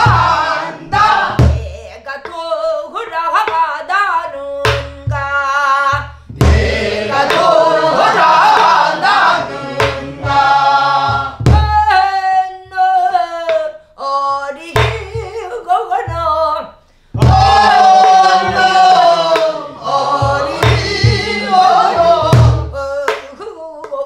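A woman singing a southern Korean (Namdo) folk song in full-throated folk style, holding wavering notes in long phrases with short breaks. She accompanies herself on a soribuk barrel drum, striking it with a wooden stick in irregular low thumps.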